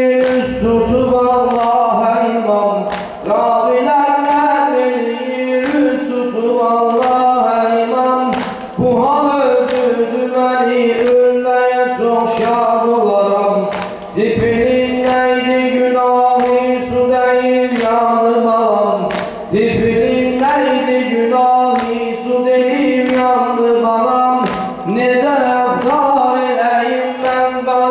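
A man chanting a mersiyye, an Azerbaijani Shia mourning elegy, unaccompanied into a microphone with long, wavering held notes. Sharp slaps come about once a second: mourners beating their chests.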